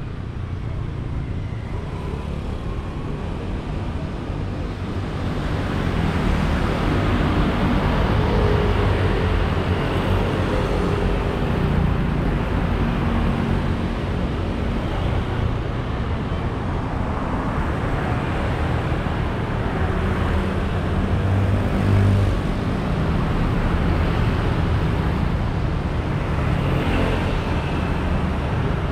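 Rush-hour road traffic passing close by: a stream of motorcycles and cars, a steady mix of engine noise and tyre rush. It grows louder about five seconds in and stays loud, with a brief swell near the end.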